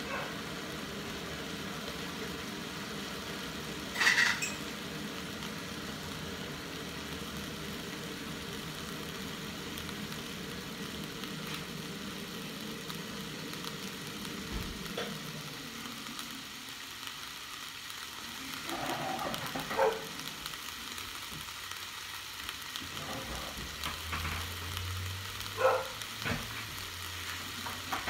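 Green beans and shrimp sizzling in a stainless steel frying pan, a steady frying hiss. A few short sharp sounds cut through it, the loudest about four seconds in, others near the twentieth and twenty-sixth seconds.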